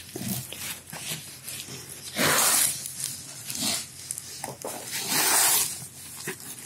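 Camper-van blackout blind fabric swishing across the table as it is rolled by hand onto its spring-loaded metal roller tube, winding up the return spring. There are two longer swishes, about two seconds in and about five seconds in, with a shorter one between them.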